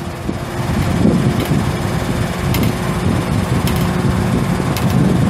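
An engine on a digger derrick truck running steadily, with a few faint ticks now and then.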